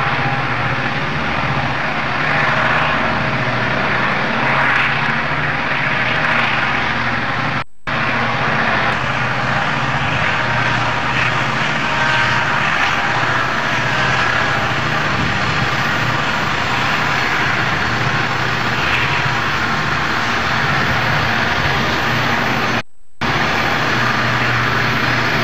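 Diesel locomotives working hard under load as they haul a loaded coal train up the grade: a steady, heavy engine drone with a low throb. The sound cuts out briefly twice, about a third of the way in and near the end.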